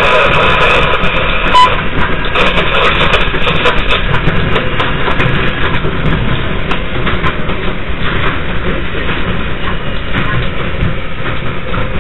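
New York subway train on the 5 line running on elevated track, heard from the front cab: steady wheel-and-rail rumble with many irregular clicks over joints. The noise eases gradually as the train runs into a station.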